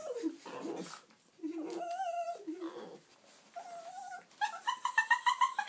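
Small shaggy dog whining: a few drawn-out, wavering whines, then a quick run of short whimpering yips, about five a second, near the end. It is whining to be taken out for a walk.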